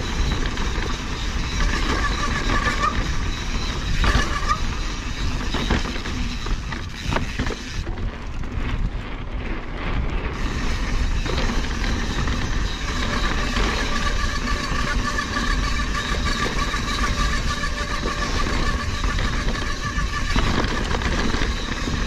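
Mountain bike riding over a rocky jeep trail: a steady rumble of wind on the microphone mixed with tyre and bike rattle noise.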